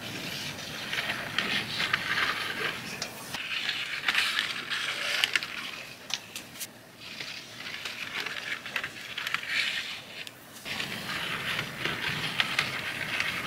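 N scale model freight cars rolling over 3D-printed plastic track and switches: a light rolling rattle with sharp clicks from the wheels, coming in several passes a few seconds each.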